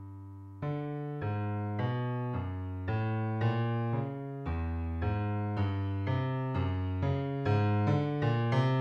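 Background piano music. A held chord fades out, then about half a second in a steady run of notes begins at about two a second, growing gradually louder.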